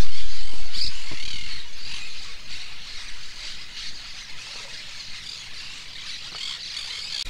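Birds chirping and calling throughout, many short high notes overlapping. A loud low rumble at the very start fades away over the first few seconds.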